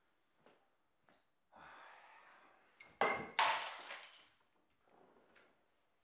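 Glass or crockery crashing: two sharp impacts about half a second apart, around the middle, with a ringing, shattering tail that dies away within about a second.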